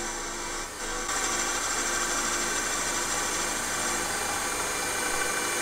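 Milling machine spindle running a 12 mm slot drill down into a cast iron piston blank, a steady machining whir with a few constant tones. The sound becomes louder and steadier about a second in.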